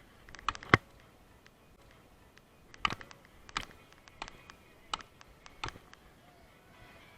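Sharp clicks or knocks: a pair near the start, the second the loudest, then five more, evenly spaced about two-thirds of a second apart.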